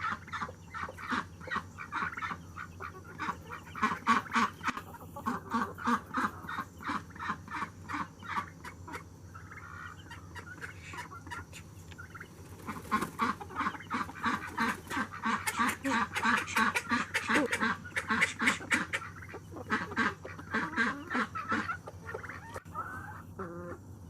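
Backyard poultry flock calling, with runs of rapid, repeated honking calls several to the second and clucking mixed in. There is a lull midway, then a busier burst.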